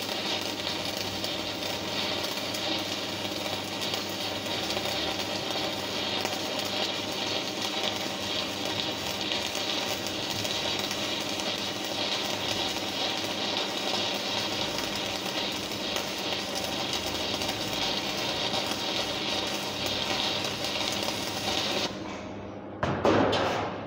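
Stick (shielded metal arc) welding arc sizzling steadily as a straight bead is laid, cutting off suddenly when the arc is broken about 22 seconds in. A single louder knock follows near the end.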